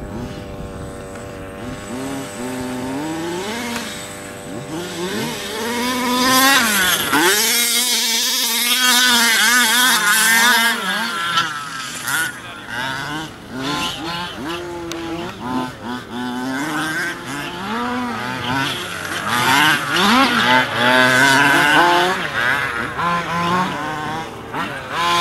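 Two-stroke gas engine of a Losi 5ive 1/5-scale RC car revving up and down over and over as it is driven, its pitch gliding up and falling back in quick runs. It is loudest for a few seconds about a quarter of the way in and again near the end.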